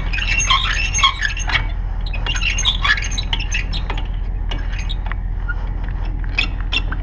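A vehicle engine idling with a low, steady hum. Over it come a busy run of short, high squeaks and chirps in the first three seconds, then scattered light clicks and ticks.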